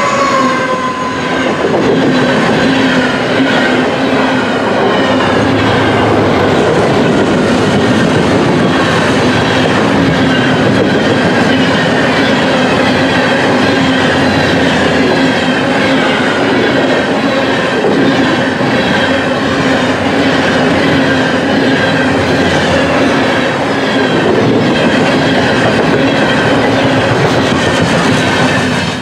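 Long, heavy loaded potash freight train passing at track speed: a steady loud rolling noise of hopper car wheels on the rails, with clicking over rail joints and some wheel squeal.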